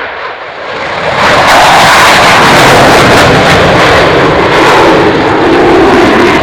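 Dassault Rafale's twin jet engines roaring at full power on its display takeoff run, swelling to full loudness about a second in and holding there with a crackle.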